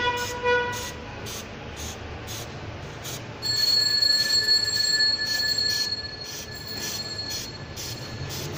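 Aerosol chain lube sprayed onto a motorcycle drive chain: a hiss with a steady high whistle from the nozzle from about three and a half to six seconds in, after a short squeal at the start. Light ticks come about twice a second throughout.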